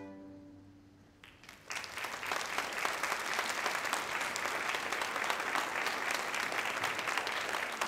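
The last chord of a string orchestra dies away, and after a brief hush an audience breaks into applause about a second and a half in, then keeps clapping steadily.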